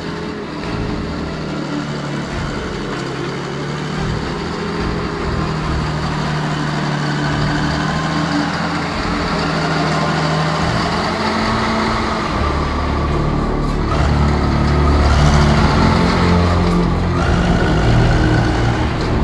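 Caterpillar motor grader's diesel engine running steadily as it grades a dirt road. It gets louder from about twelve seconds in as the engine works harder under load.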